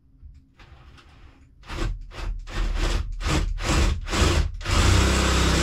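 Hand tool worked back and forth on a wooden frame: rasping strokes, about two to three a second, starting after about a second and a half and ending in one longer stroke.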